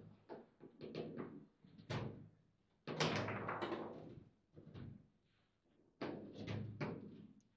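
Foosball table in play: the ball is struck by the rod figures and the rods knock against the table, a series of sharp knocks and thuds, the loudest about three seconds in.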